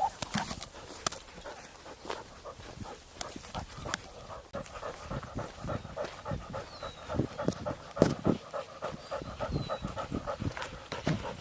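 Husky panting steadily and rhythmically, heard close up from a camera strapped to its back, with scattered light knocks and a sharper one about eight seconds in.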